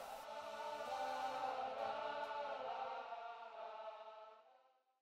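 Closing music: a sustained, choir-like chord held steady, fading out about four and a half seconds in.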